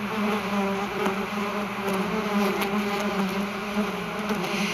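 Recorded bee buzzing sound effect: one steady, slightly wavering buzz with many overtones, played back from a video-editing timeline.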